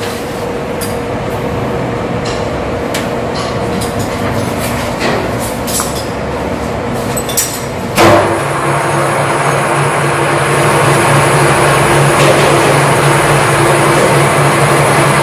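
Steady machine-shop machinery din with scattered metallic clinks of tools and parts handled on a workbench. About eight seconds in, a sharp knock, after which a steadier, louder machine hum with a low drone takes over.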